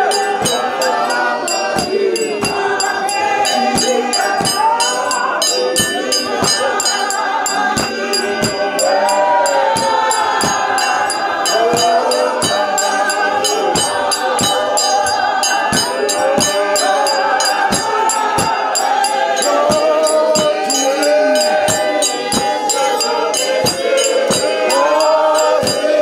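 Congregation singing a hymn together in unison, accompanied by a steady beat and rattling percussion.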